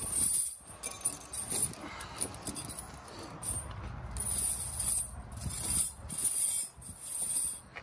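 Steel tire chains on a big rig's dual drive tires clinking and jingling as they are handled and loosened by hand, in several separate bursts.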